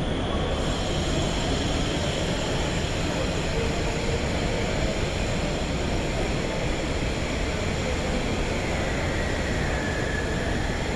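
Steady, loud, rushing crowd hubbub in a large hall, with a faint murmur of many voices, heard through a handheld phone microphone.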